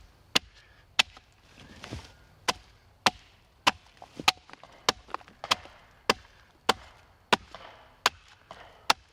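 Axe chopping into the face of a split log: a steady run of sharp blows, about fourteen strokes roughly every half second, hewing the surface flat for a bench.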